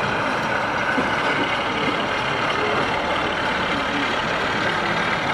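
Steady diesel-engine running sound from model diesel locomotives on a layout, with no sudden clicks or breaks.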